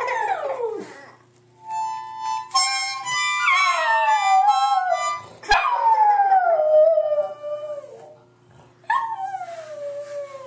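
A toddler blows a harmonica in short chords while a pug howls along. There are about four long howls, each falling in pitch, and a sharp click about halfway through.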